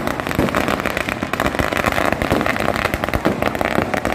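Ground firecrackers going off in a rapid, dense string of crackles and pops, with a steady hiss underneath.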